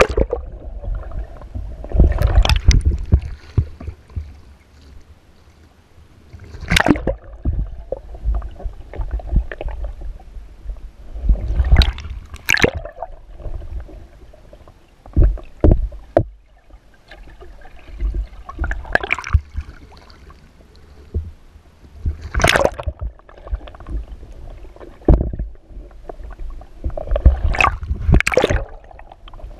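Water splashing and sloshing around a kayak being rolled over and back up, heard from a camera on its deck. Sharp splashes come every few seconds as the boat goes under and breaks the surface, with a muffled underwater rumble between them.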